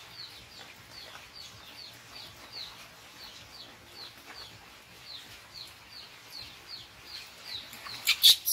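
Repeated high-pitched animal chirping: short falling chirps, about three a second, kept up steadily. Near the end comes a brief burst of much louder, sharper sounds.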